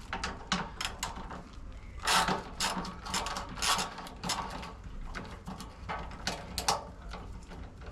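Hand ratchet wrench clicking in short bursts of strokes as bolts on a car's body panel are undone.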